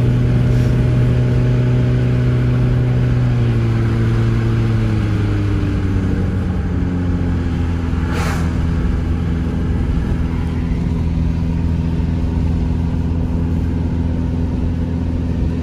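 A car's engine and tyres heard from inside the cabin while driving on a wet road: a steady engine hum that drops in pitch about five seconds in, over road noise. A short sharp click about eight seconds in.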